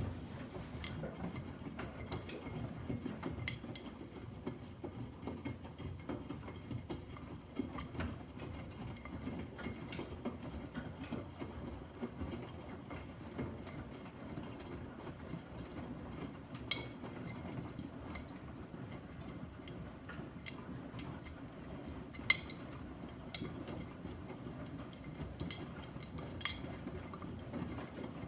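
Miele front-loading washing machines running a wash cycle, with a steady low rumble and scattered sharp clicks.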